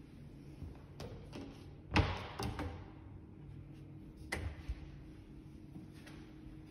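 Built-in cabinet doors with framed frosted-glass panels and concealed hinges being pulled open. There are a few light clicks, then a louder knock and rattle about two seconds in, and another short clatter a little after four seconds.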